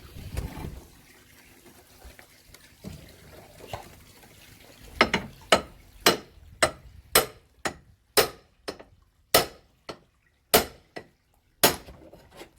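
Sharp knocks on the wooden shed being dismantled: about a dozen blows, roughly two a second, starting about five seconds in, with a few fainter knocks before them.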